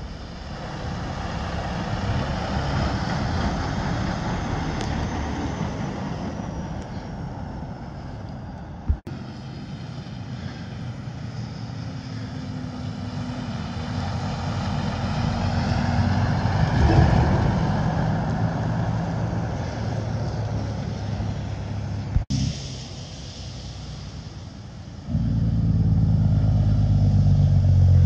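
Heavy diesel haul trucks going by one after another, a tractor-trailer dump rig and a roll-off truck: engine and tyre noise that swells as each passes. Near the end a big diesel tractor-trailer runs close and loud, its deep engine note the loudest sound. The sound drops out suddenly and briefly twice.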